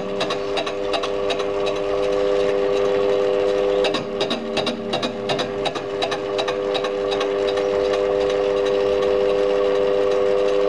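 Metal lathe fly cutting the end of a cylinder casting: a steady whine from the running lathe with a fast, regular ticking as the spinning fly cutter strikes the work on each turn. The ticking fades for stretches while the whine carries on.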